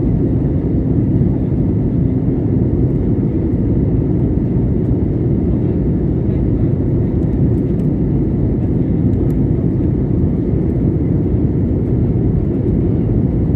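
Steady cabin noise of an Airbus A320-family jet airliner in flight: a constant low rush of engine and airflow with a faint steady hum, even throughout.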